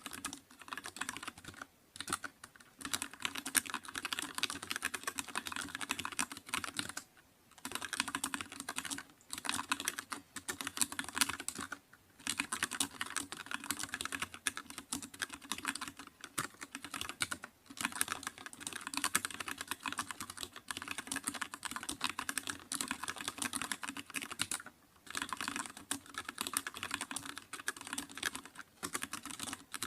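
Typing on a computer keyboard: fast, continuous keystrokes in long runs, broken every few seconds by short pauses.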